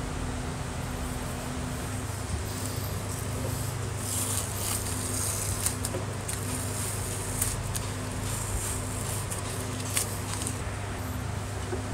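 A rag rustling and rubbing as it wipes the housing of an air compressor pump, with a few light knocks, starting about four seconds in and stopping near the end. A steady low hum runs underneath.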